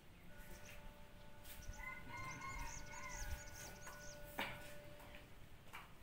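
A rooster crowing, with a faint steady tone underneath and a single sharp click about four and a half seconds in.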